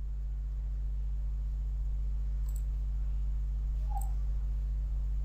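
A few faint computer mouse clicks, about two and a half and four seconds in, over a steady low electrical hum.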